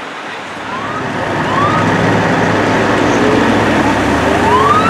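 Siren of an LA County Fire mobile air and light unit giving several short rising whoops over the noise of traffic and idling engines. The sound grows louder about a second in as the unit moves up.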